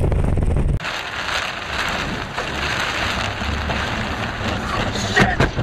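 Heavy rain on a moving car's windshield and roof, heard from inside the car as a steady hiss. Under a second in, a louder low rumble cuts off abruptly, and a few sharp sounds come near the end.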